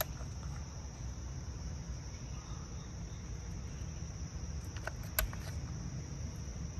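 A ratchet wrench clicks a few times about five seconds in as it tightens an ignition coil's hold-down bolt. Behind it are a steady low rumble and a steady high-pitched background drone.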